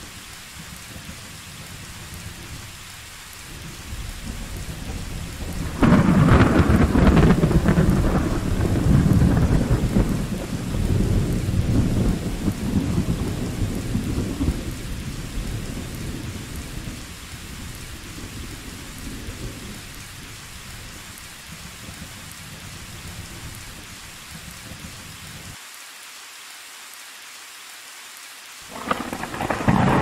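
Steady rain during a thunderstorm. A loud thunderclap breaks about six seconds in and rumbles on for several seconds before fading back under the rain. Another thunderclap starts near the end.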